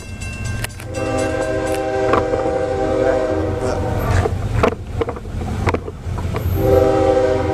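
A CSX freight locomotive's air horn sounds two long steady blasts, the first about a second in and the second starting near the end, as it approaches the grade crossing. A low rumble runs underneath.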